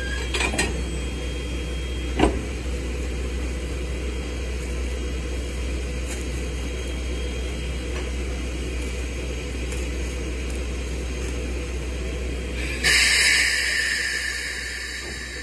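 Coupling a coach to a steam locomotive's tender: a sharp metallic clank about two seconds in over the steady low rumble of the standing locomotive, then, once the brake hoses are joined, a sudden loud rush of air near the end that fades over a couple of seconds as the air brake line is opened and charges.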